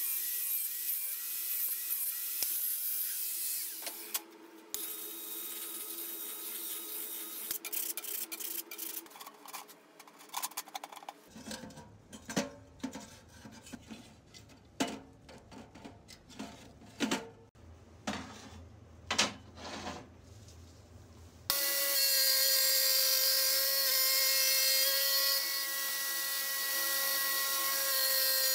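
Angle grinder cutting a stainless steel flue pipe, a steady whine over hissing noise. A stretch of separate knocks and scrapes follows, wood clattering in the stove's metal feed tube. About 21 s in, a grinder starts cutting sheet metal, a loud steady whine with showering sparks.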